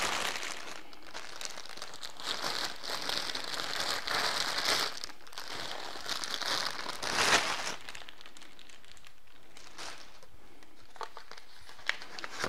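Clear plastic packaging bag crinkling and rustling as a tripod head is worked out of it. The rustling is loudest about seven seconds in, then gives way to a few light handling clicks.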